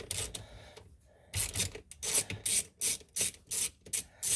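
Socket ratchet being worked back and forth on a small 5.5 mm bolt under the steering column, a run of quick ratcheting strokes about three a second that starts about a second in.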